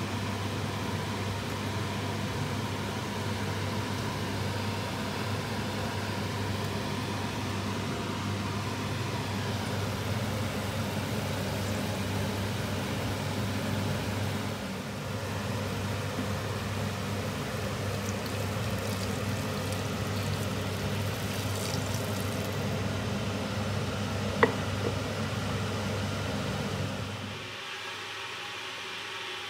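Steady low mechanical hum with hiss, like a motor or fan running, with a single sharp click about twenty-four seconds in; the sound becomes quieter near the end.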